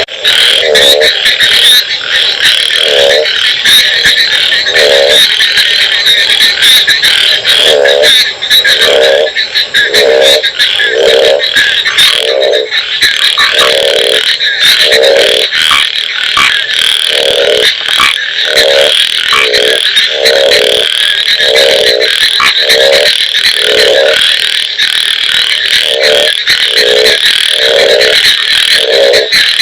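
A frog croaking over and over: short pulsed croaks, a few seconds apart at first, then about one a second, over a steady high-pitched chorus.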